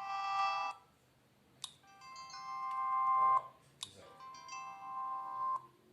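Siemens CF62 mobile phone playing short electronic alert-tone melodies through its speaker, one after another. Each tune lasts about a second and a half and grows louder as it plays, and a sharp click comes just before each new one.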